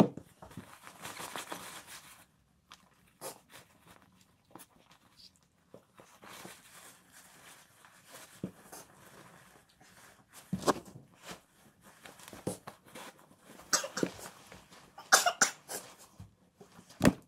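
Scattered rustles, knocks and clicks of snow boots being pulled off and handled and nylon snow pants brushing, with a few short, louder noisy bursts about ten seconds in and again near the end.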